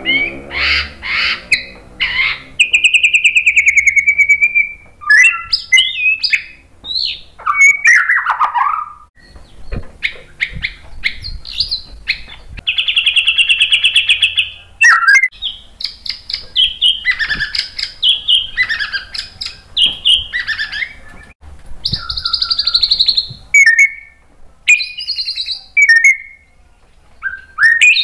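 White-rumped shama singing a loud, varied song: clear whistles, buzzy rattling trills and notes sliding downward, phrase after phrase with short pauses between them.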